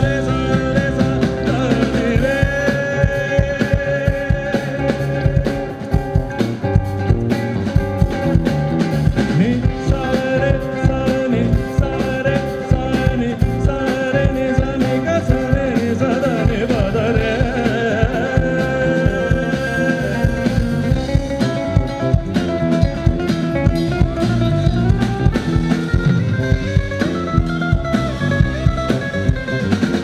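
Rock band playing live, with singing over a steady drum beat.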